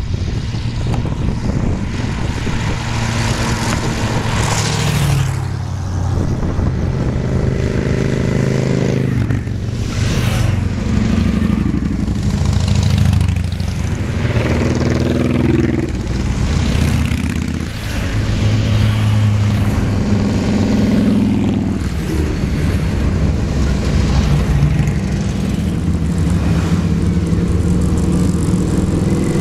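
A column of motorcycles, a trike and cruiser-style bikes, riding past one after another, their engines rising and falling in pitch as each goes by.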